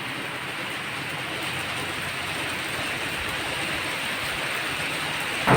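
Heavy rain pouring down in a steady, unbroken hiss. A sharp knock comes right at the end.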